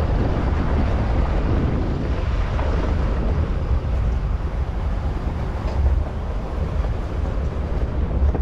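Safari vehicle driving along a jungle track: a steady engine and tyre rumble with wind buffeting the microphone.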